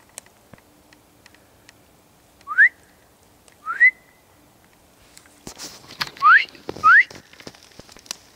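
A person whistling four short, sharply rising notes, in two pairs a few seconds apart. In the second half, footsteps crunch through dry cypress needles.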